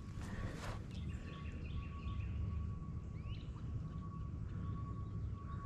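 Outdoor ambience: a steady low rumble with a thin steady whine, and faint bird chirps about a second in and a short bird call a little past the middle.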